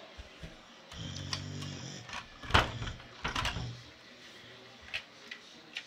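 Toy car rolled and knocked about on a wooden table: a low rolling rumble, then a loud knock and a few smaller clicks and knocks.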